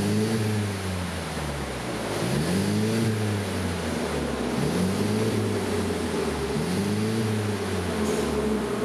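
2016 Mercedes-Benz C250 Coupe's 2.0-litre turbocharged four-cylinder running through an aftermarket cat-back exhaust, blipped four times at about two-second intervals, each rev rising and falling back. It settles to a steady idle near the end.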